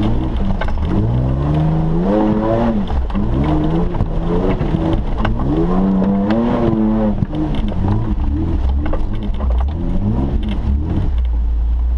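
Suzuki off-roader's engine heard from inside the cab, revving hard and easing off several times, the revs climbing and falling in repeated surges as it drives up the track.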